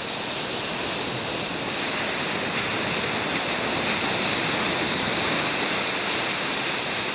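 Surf breaking and washing in along the shoreline: a steady rushing noise of waves.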